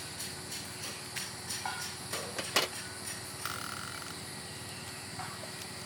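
Scattered short clicks and knocks over a steady background hum, the loudest a sharp click about two and a half seconds in, with a brief high tone about a second later.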